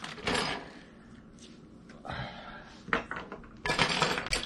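Small metal antenna hardware (nuts, bolts, a U-bolt) being handled and set down on a wooden tabletop: scattered clinks and short rustles from the plastic parts bag, with a sharp click about three seconds in and a cluster of clinks near the end.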